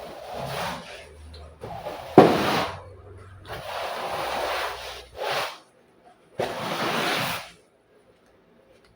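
Cleaning cloth rubbed over the floor in about five long wiping strokes, each a rubbing swish, with a sharp knock about two seconds in.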